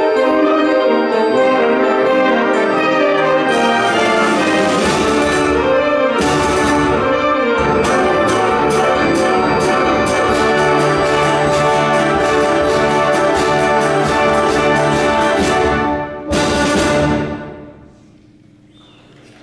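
Middle school concert band of woodwinds, brass and percussion playing a loud, rhythmic closing passage. It breaks off about sixteen seconds in, one short final chord is struck, and it rings away in the hall.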